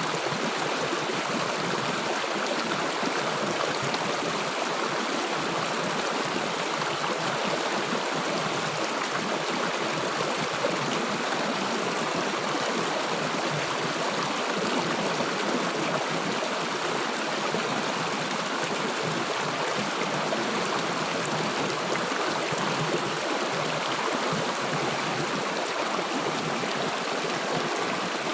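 River water flowing and gurgling steadily over rocks, an even rushing wash without pauses.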